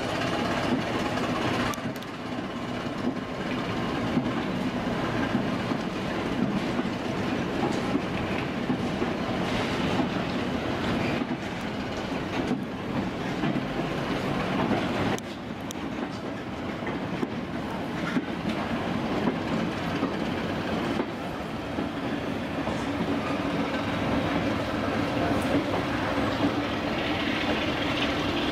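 Goods train of short wagons and a brake van rolling past, its wheels clattering over the rail joints.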